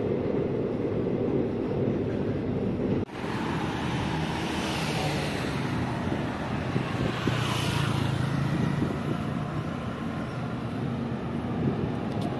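City traffic noise: a steady road rumble with vehicles passing, swelling twice around the middle, with an abrupt jump in the sound about three seconds in.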